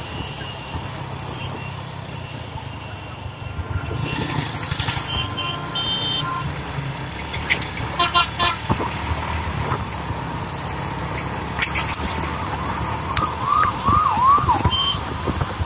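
Riding on a motorbike: its engine runs steadily under road and wind noise on the phone microphone, with passing traffic. Short repeated horn toots sound about eight seconds in, and quick high chirps come near the end.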